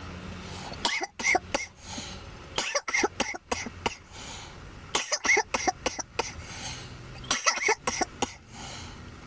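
A man coughing in four fits a couple of seconds apart, each a run of several harsh coughs: smoker's coughing from a joint of weed, kief and hash.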